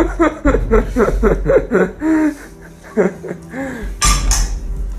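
A man laughing in quick short bursts, then a few drawn-out vocal sounds, and a short loud hiss about four seconds in.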